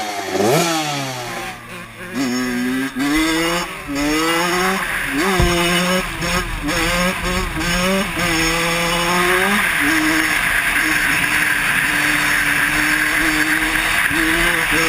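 Kawasaki KX85 two-stroke single revved in two quick throttle blips. It is then ridden hard: the engine climbs and drops with each of about five upshifts, then holds a steady pitch at speed with wind rushing over the helmet microphone.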